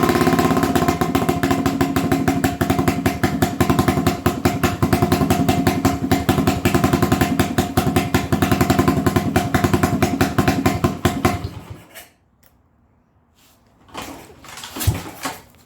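1980 Honda XL250S single-cylinder four-stroke engine idling with an even, rapid beat, then dying out about twelve seconds in as the carburettor mixture is leaned. Made leaner than about the middle setting, it just shuts off. A couple of faint knocks follow near the end.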